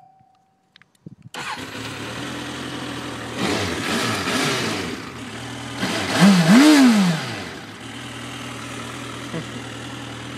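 Suzuki GSX650F motorcycle's inline-four engine starting about a second in and settling into idle, then revved: a short rise in engine speed, then one bigger rev whose pitch climbs and falls back, before it returns to a steady idle.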